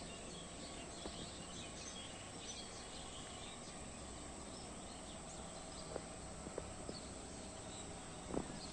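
Small birds chirping with many short, high calls over a faint steady background hum, thinning out after about five seconds. A few sharp taps follow, the loudest near the end.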